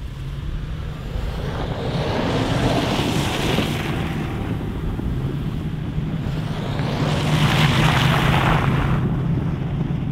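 A vehicle driving: a steady low engine drone under rushing road and wind noise that swells up twice.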